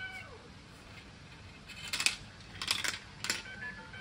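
Hard plastic marble-run track pieces clicking and clattering against each other as a small child handles them, in a few short clatters in the second half.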